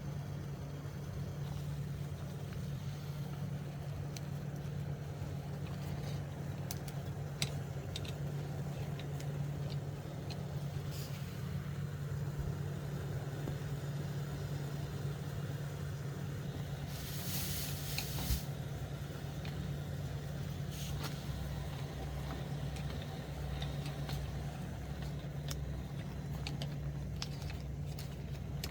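A steady low mechanical hum, like an idling engine or running motor, with scattered small clicks and a brief hiss about 17 seconds in.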